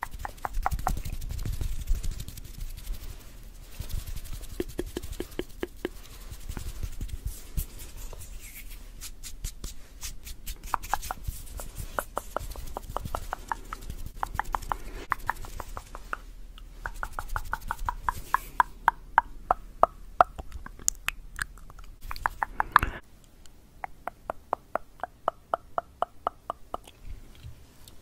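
Close-miked tongue clicking and wet mouth sounds, coming in rapid runs of clicks a few seconds long with short pauses between them.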